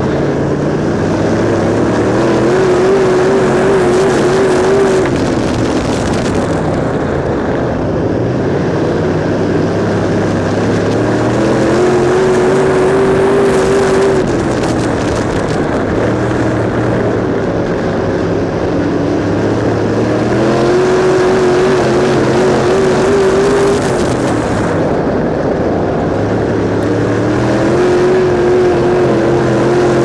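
Canadian Modified dirt-track race car's engine heard from on board at racing speed: the revs climb and hold high down the straights, then drop off into the turns, about four times in a lap-by-lap cycle.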